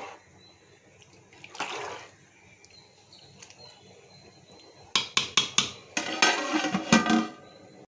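A metal ladle stirring rice through boiling masala in a large metal pot, first softly, then knocking sharply against the pot several times about five seconds in, followed by a loud, ringing clatter of metal on metal.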